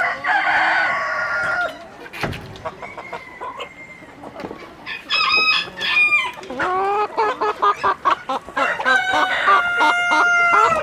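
Chickens calling: roosters crowing several times, with hens clucking between the crows, the longest crow near the end.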